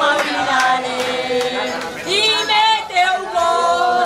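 A group of people singing together in held notes. About two seconds in, a single high voice cuts in, its pitch wavering up and down.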